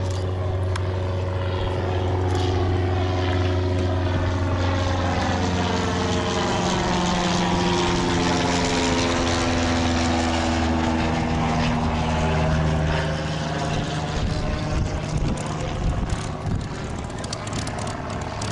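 P-51 Mustang's Packard Merlin V-12 engine running at low taxi power as the fighter rolls past, a steady propeller drone. Its note drops as it goes by, and it gets a little quieter near the end.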